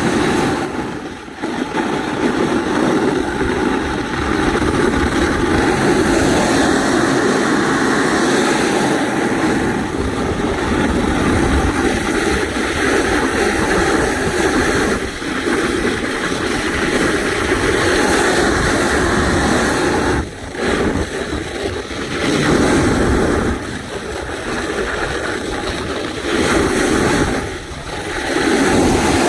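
Snowboard sliding over groomed corduroy snow, a loud steady rush of board scrape mixed with wind on the microphone, dipping briefly a few times.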